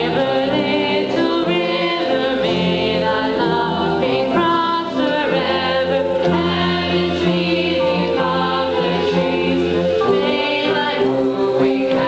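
A stage chorus of young men's and women's voices singing a lively operetta number together.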